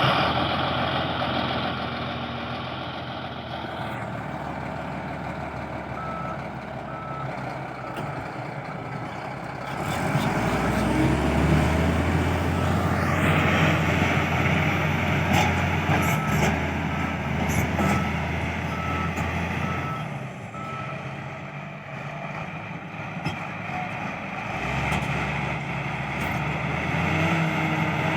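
LiuGong B160 bulldozer's diesel engine running, pulling harder and louder about a third of the way in, easing off about two-thirds through and building again near the end. Its reversing alarm beeps steadily in two stretches, and there are a few sharp clanks in the middle.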